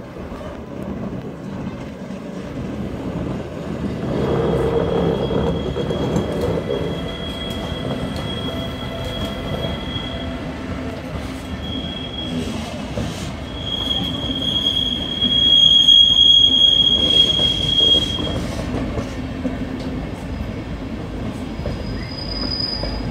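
Flixtrain passenger coaches rolling slowly past, wheels squealing on the rails in a steady high tone over the rumble of the running gear. The squeal comes in a few seconds in, is loudest about two thirds of the way through and fades out, with a shorter, higher squeal near the end.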